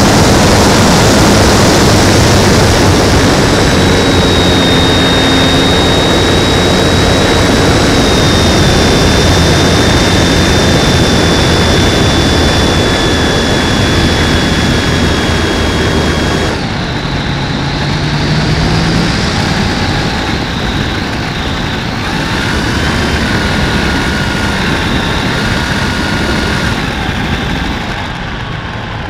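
Electric motor and propeller of a ParkZone Corsair foam RC plane heard from an onboard camera: a steady high whine over loud rushing air. About two-thirds of the way through, the throttle is cut and the sound drops suddenly to quieter wind noise as the plane glides down.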